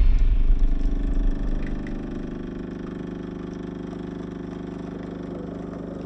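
Breville Barista Express espresso machine's vibratory pump humming steadily while it pushes water through the coffee puck during an espresso extraction.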